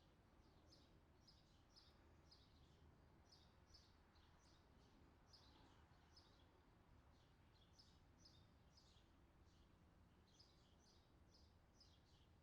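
Very faint birdsong: a continuous run of short, high, downward chirps, a few a second, over a low steady background hum.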